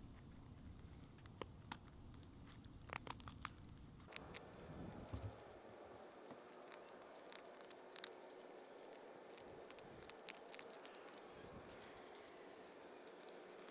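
Knife blade shaving a strip of dry wood into kindling: faint scraping and tearing strokes with scattered sharp cracks and clicks as slivers split off.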